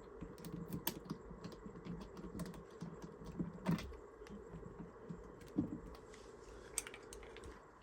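Scattered light clicks and taps of a key being worked in a small lock as the cache container is opened.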